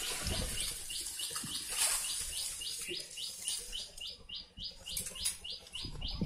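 Steady high chirping, one short note repeated evenly about four times a second. Now and then dry leaves and twigs rustle as a long hooked stick prods through the leaf litter.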